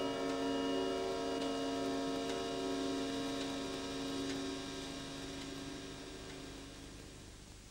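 Chime of a weight-driven clock ringing out after being struck: a cluster of steady bell-like tones that fades slowly to almost nothing, with a few faint ticks.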